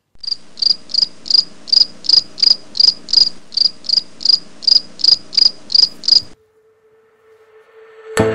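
Cricket chirping sound effect, a loud even series of high chirps about three a second, which starts abruptly and cuts off suddenly about six seconds in. Near the end, music with chimes begins.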